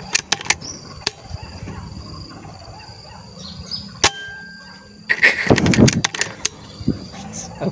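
Handling noise from a scoped hunting rifle being swung while aiming: scattered clicks, a sharp single click about four seconds in, then a denser spell of rustling and knocking a little after five seconds.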